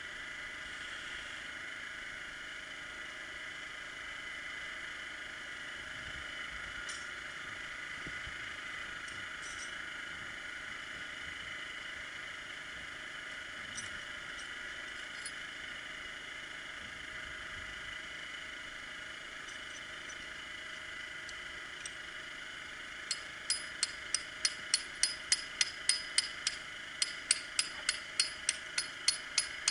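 A generator engine runs steadily. About three quarters of the way in, a hammer starts striking metal on rock in quick, ringing blows, three to four a second, setting an anchor in a freshly drilled bolt hole.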